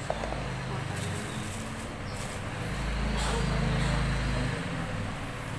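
A vehicle engine running past, a low hum that grows to its loudest about three to four seconds in and fades near the end.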